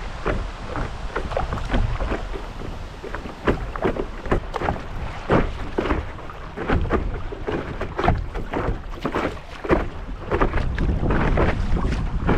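Water splashing and lapping in quick, irregular splashes around a stand-up paddle board, with a steady low rumble of wind on the microphone.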